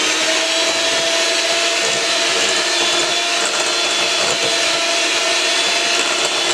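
Electric hand mixer running steadily at one speed, its beaters whirring through creamed butter and sugar as an egg is beaten in.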